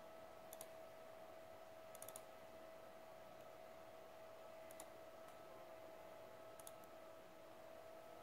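Faint computer mouse clicks: quick double clicks a second in, near 5 s and near 7 s, and a fast triple click about 2 s in, as folders are opened and a file is saved. A steady faint hum lies under them.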